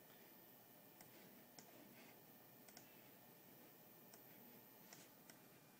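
Near silence: room tone with about six faint, sharp clicks at irregular intervals.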